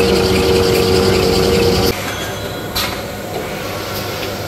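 Kitchen towel paper making machine line running: a steady mechanical hum with a few whining tones, which gives way about two seconds in to a quieter rumble. A short, sharp hiss comes a little past the middle.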